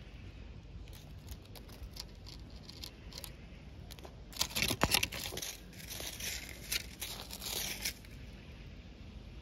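A cat eating from the ground among dry leaves: a run of small crunching and crackling clicks, thickest and loudest for a few seconds in the middle.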